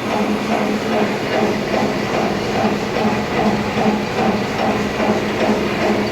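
Heavy-duty lathe running steadily, a constant hum with a rhythmic pulsing about three times a second over a mechanical hiss.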